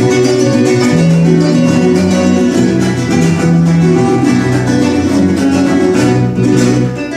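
Guitar music in a flamenco style, plucked notes running on steadily.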